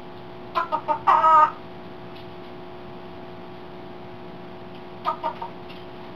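African grey parrot imitating a chicken's clucking: three short clucks and a longer drawn-out cluck about a second in, then three more short clucks near the end, over a steady low hum.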